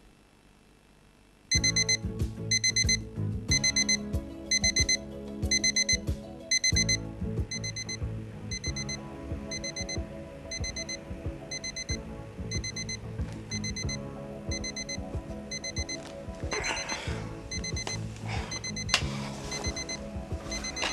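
Digital alarm clock going off about a second and a half in: a rapid high electronic beeping, about two short beep groups a second, loud for the first few seconds and then softer, over background music.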